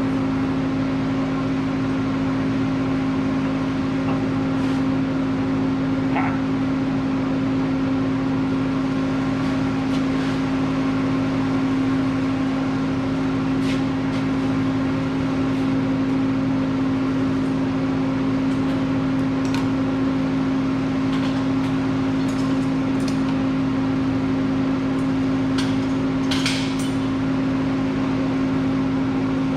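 Steady machine hum that holds one pitch throughout, with a few faint clicks and taps.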